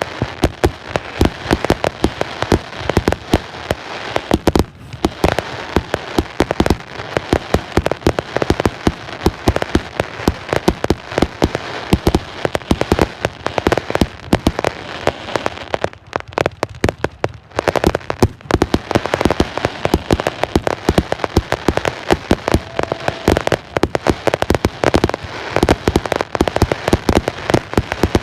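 Fireworks going off in rapid succession: a dense, continuous barrage of bangs and crackles, many per second, with a couple of brief lulls.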